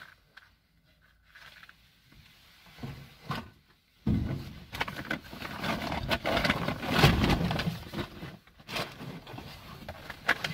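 Plastic bags and clothing being pulled about by gloved hands, rustling and crinkling with small knocks of objects being moved, quiet at first and loudest from about four seconds in.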